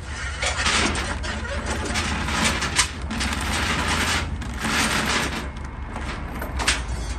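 Steel tie-down chain rattling and clanking as it is pulled over a wooden cable reel, in several scraping runs with sharp clinks, over a steady low rumble.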